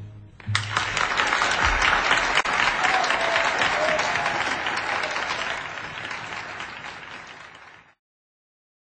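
Audience applauding at the end of a live song: a dense clatter of clapping that starts about half a second in, slowly fades, and cuts off abruptly near the end.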